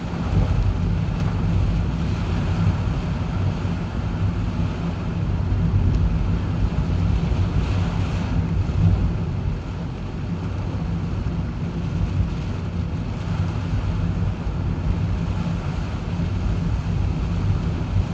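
Steady low rumble of a car driving on the road, with typhoon wind noise over it.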